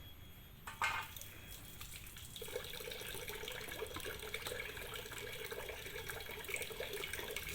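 A short knock just under a second in, then water running steadily from a tap for hand washing with soap.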